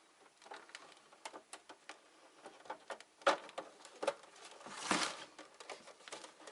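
Plastic housing parts of an APC Back-UPS RS 900 battery backup being handled and pushed back together: a run of light clicks and knocks, a sharper click about three seconds in, and a louder scraping rub about five seconds in.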